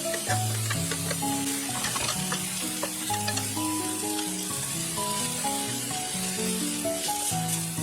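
Komatsuna and shirasu sizzling in sesame oil in a frying pan, stirred with small clicks of the utensil against the pan, over background music with a simple stepped melody.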